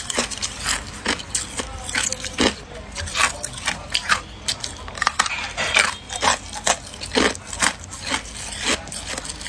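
A person chewing ice close up: irregular sharp crunches, a few each second, as the ice is bitten and ground between the teeth.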